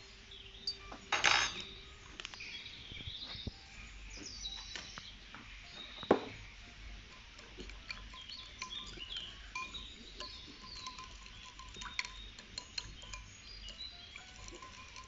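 A metal spoon stirring milk in a glass bowl, repeatedly clinking and scraping against the glass. There is a louder clatter about a second in and a single sharp clink around six seconds in.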